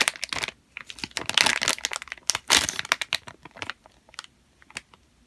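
Clear plastic squishy packaging bag crinkling as it is handled, in dense stretches through about the first three and a half seconds, then a few scattered crackles.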